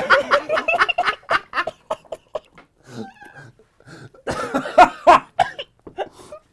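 Men laughing hard in short, breathy, cackling bursts, mixed with coughing and spluttering from someone who has just choked. The laughter dies down in the middle and surges again about four seconds in.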